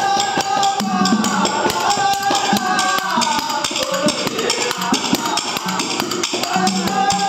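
Kannada dollina pada folk song: a man sings a gliding devotional melody over a barrel drum and sharp clicking hand percussion that keep a steady beat.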